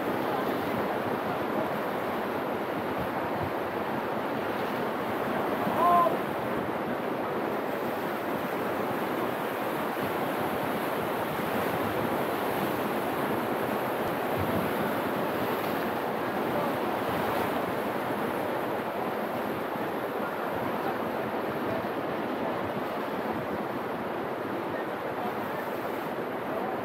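Caspian Sea waves washing steadily against a breakwater of concrete armour blocks, with wind on the microphone. A brief high cry stands out about six seconds in.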